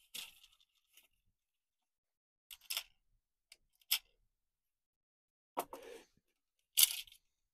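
A clear plastic bag of small metal kit parts and a plastic parts box being handled: five or so short crinkling rustles with pauses between them, the last the loudest.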